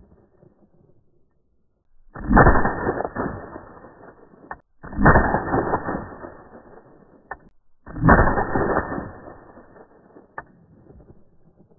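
Ruger PC Carbine 9mm firing three single shots about three seconds apart, each a sharp crack that echoes away over a couple of seconds. A short faint click sounds between shots.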